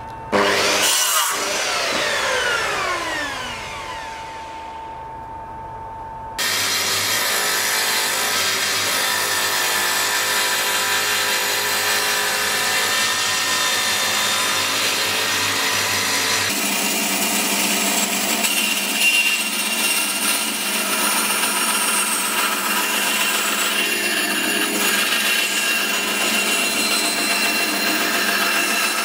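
Power saws cutting a thin strip of hardwood-free light wood in turn: a sliding mitre saw makes a short cut and its blade winds down in a falling whine. About six seconds in, a table saw starts, running steadily through the wood, and from about sixteen seconds in a bandsaw runs.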